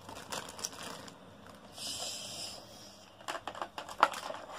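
Clear plastic bag crinkling and rustling as toy kitchen pieces are handled, with light clicks of small plastic parts and a sharp plastic tap about four seconds in.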